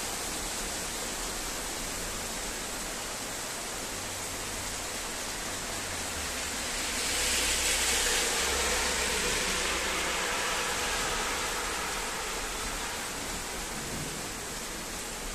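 Steady hiss of heavy rain falling during a thunderstorm, swelling louder for a few seconds about seven seconds in before easing back.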